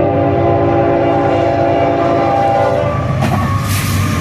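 Union Pacific diesel locomotive's air horn blowing a steady chord of several notes, cutting off about three seconds in. Under it and after it, the locomotive's engine and the train running over the crossing.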